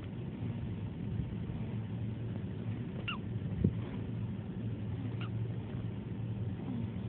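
Newborn baby hiccuping: two short, high-pitched squeaks, the first about three seconds in and falling in pitch, the second about two seconds later, with a soft thump just after the first squeak. A steady low hum runs underneath.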